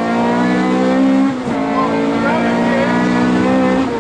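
Honda Civic rally car's engine heard from inside the cabin, running hard at steady high revs, with brief dips about a second and a half in and again near the end.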